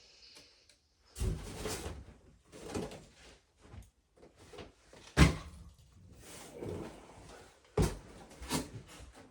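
Cardboard boxes being shifted and set down by hand: scraping and rustling with several thuds. The loudest thud comes about five seconds in, and another sharp one comes near eight seconds.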